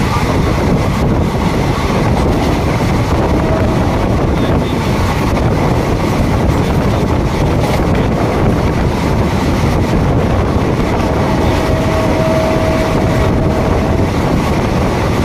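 Passenger express train running at speed, heard from on board: a loud, steady rush of air and rolling wheel noise. A faint thin whine rises out of it for a few seconds near the end.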